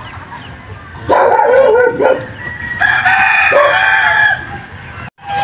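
A rooster crowing, starting about a second in and ending with a long held note. The sound cuts out abruptly near the end.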